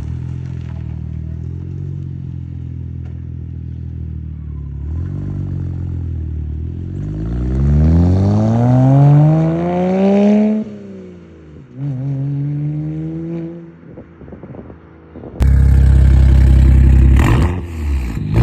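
BMW 535xi twin-turbo inline-six engine running through its exhaust: idling steadily, then revved up hard for a few seconds and dropping back. About three seconds before the end a sudden, much louder stretch cuts in.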